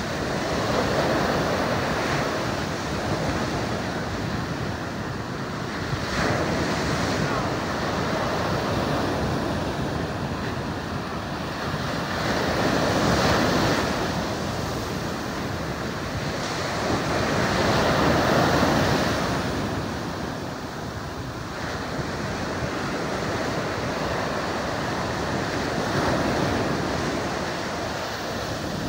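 Ocean surf breaking and washing over the sand, swelling and fading in slow surges every five to seven seconds, with wind buffeting the microphone.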